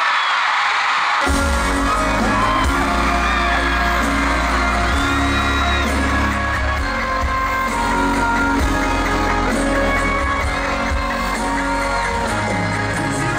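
Live pop band at a stadium concert, heard from the crowd: screaming fans at first, then about a second in the full band comes in at once with heavy bass and drums, with singing over it.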